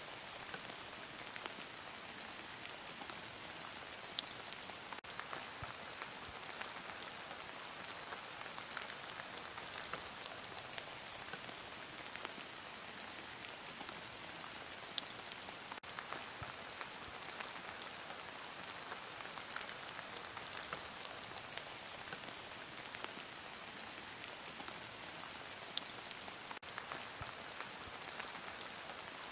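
Heavy rain falling steadily, a constant hiss with scattered individual drops ticking sharply on a surface.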